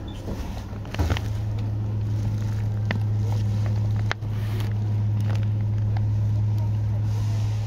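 Tokyu 8500 series electric train, fitted with Hitachi and Toyo traction motors, running. A steady low hum starts with a sharp click about a second in, breaks off for an instant midway, and carries on, with a few sharp clicks over it.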